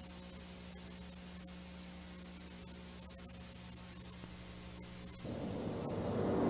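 Steady tape hiss and mains hum of a VHS transfer, with a few faint clicks. About five seconds in, a dense low drone starts and swells louder.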